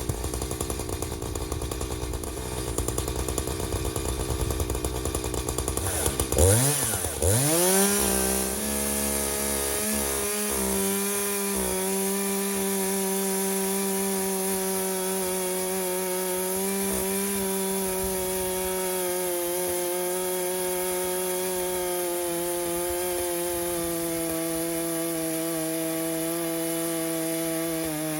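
Echo CS-590 two-stroke chainsaw on a homemade chainsaw mill, running low at first, then revving up about six seconds in and holding a steady high pitch at full throttle.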